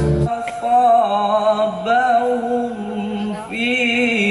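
Instrumental music stops abruptly just after the start. A man then sings sholawat unaccompanied, holding long notes with wavering, melismatic ornaments.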